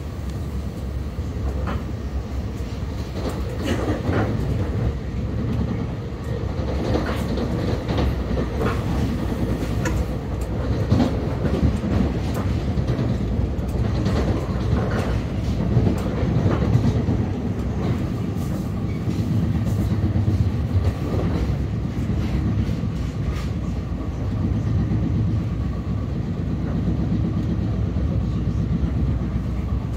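NJ Transit Bombardier MultiLevel coach running at speed, heard inside the car: a flat spot on one wheel pounds in a rapid, regular knock over the train's rumble, insanely loud.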